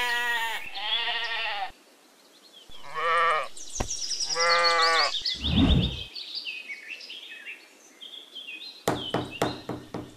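Sheep bleating: four wavering bleats in quick succession, then a low thump.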